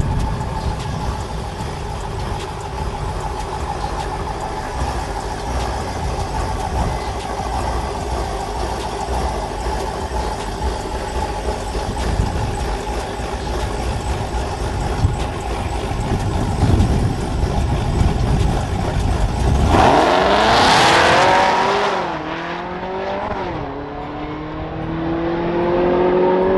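Cadillac CTS-V's supercharged V8 idling in the staging lane with a steady low rumble. About twenty seconds in it launches at full throttle with a loud rising rev, then its pitch climbs and drops with each gear change as the car pulls away down the drag strip.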